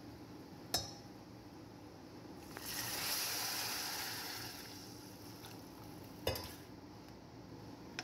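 Broth poured into a hot pan of toasted orzo (bird's-tongue pasta), hissing and sizzling as it hits, then dying down over a couple of seconds. Two sharp knocks of a utensil against the pan, one about a second in and one near the end.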